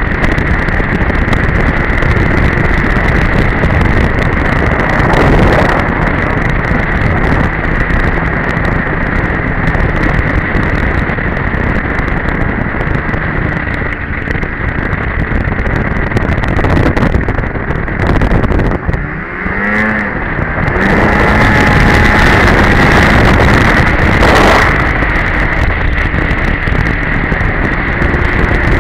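Polaris Edge two-stroke snowmobile running at speed, the engine and track noise steady and loud with wind on the microphone. About eighteen seconds in, the throttle eases off briefly and the engine pitch then sweeps back up as it accelerates again.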